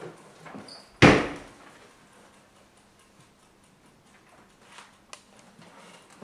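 A door banging shut, a single loud slam about a second in with a short echo in the small room.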